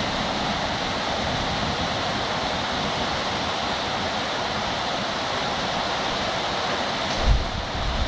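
Heavy downpour with strong wind: a dense, steady hiss of rain and wind-tossed trees. About seven seconds in, a gust buffets the microphone with low rumbling.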